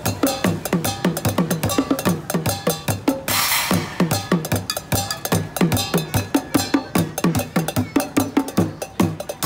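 Two street drummers beating a makeshift junk kit of small drums, cymbals, pots, pans and plastic containers with drumsticks in a fast, steady beat. The drum hits drop in pitch as they ring, and a cymbal crashes about three seconds in.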